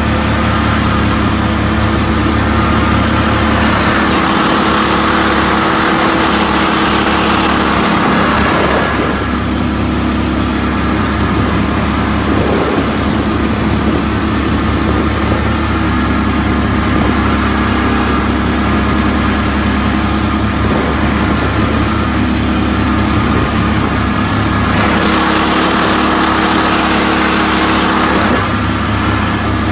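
Mud-Skipper 8–16 hp Sport surface-drive mud motor's small gasoline engine running steadily as it pushes the jon boat along. A hiss swells over the engine twice, from about four to nine seconds in and again near the end.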